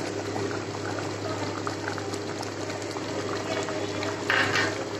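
Thick chicken curry gravy bubbling and simmering in the pan, with small pops through it. A brief louder noise comes about four seconds in.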